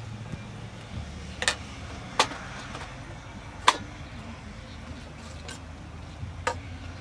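Metal ladle stirring boiling greens in an aluminium pot, clinking sharply against the pot four times; the third clink is the loudest. A steady low hum runs underneath.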